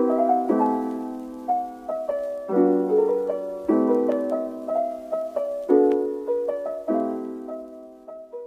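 Outro music: soft piano playing slow chords, one struck about every second and left to ring, fading out near the end.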